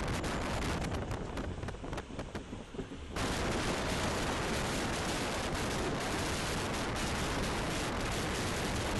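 Rhaetian Railway train running, heard from an open window: a loud, steady rush of wind buffeting the microphone over the rumble of the wheels on the track. The hiss thins out for a second or so, then comes back abruptly about three seconds in.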